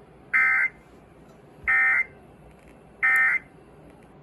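Three short, buzzy bursts of Emergency Alert System SAME digital data, evenly spaced about a second and a half apart: the end-of-message (EOM) code that closes the Required Weekly Test.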